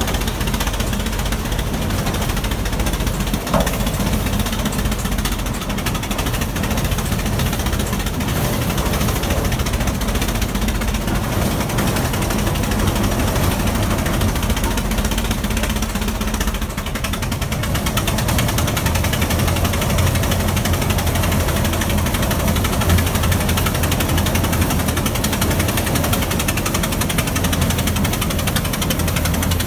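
1911 Big Four Gas Traction tractor's large four-cylinder engine running with a rapid, steady chuffing beat as the tractor drives on its steel wheels. Its low note grows stronger about halfway through.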